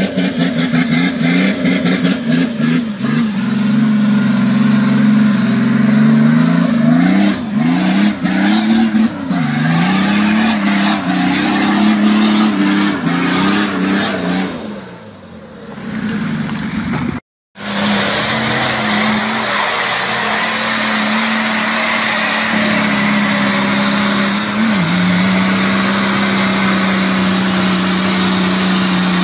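V8 engine of a Nissan Patrol Y60 4x4 revving hard, rising and falling again and again, as it claws up a muddy rutted slope, with tyres churning the mud and a few sharp knocks. After a brief cut, the engine holds a steady high note under load, dipping slightly once.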